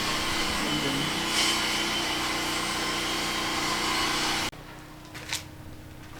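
Steady whine and hiss of power tools or machinery being run by workers outside. It cuts off suddenly about four and a half seconds in, leaving a much quieter background with a faint click or two.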